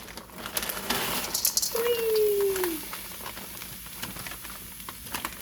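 Cooking-handling noise at a pan of fried rice: scattered clicks and rattles of vegetables and a utensil against the pan, with a crackly stretch about a second in. About two seconds in comes one short tone that falls in pitch.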